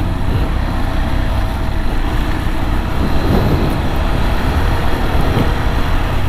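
KTM 390 Adventure motorcycle riding slowly along a dirt track: the single-cylinder engine running under a steady, heavy rumble of wind and road noise on the camera mic.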